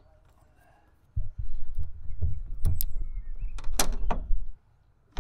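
Several sharp clicks as MC4 solar panel cable connectors are snapped together, over a low rumble that starts about a second in and stops shortly before the end.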